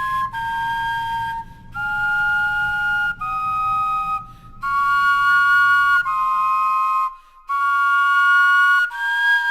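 Flute-like wind instruments made from vegetables, playing a slow two-part melody: about eight held notes of roughly a second each, with short breaks between them. The vegetables had been kept a week in a refrigerator, and they sound the same as fresh ones.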